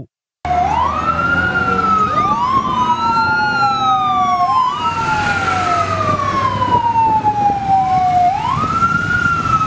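Fire engine sirens wailing over a low engine rumble, starting about half a second in. Each wail rises quickly and then falls slowly over about four seconds, with two sirens sounding out of step.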